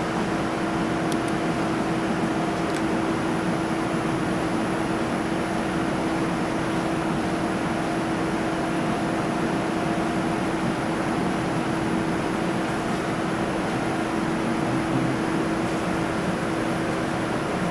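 Steady mechanical hum: an even whoosh under a constant low tone, with no change in level.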